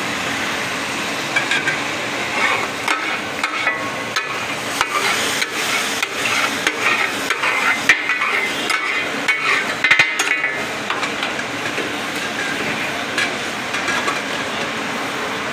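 Taka tak meat and tomato gravy sizzling steadily on a large flat griddle. Through the middle stretch there is a run of short metal clatters and knocks from the spatulas on the griddle, sharpest about eight and ten seconds in.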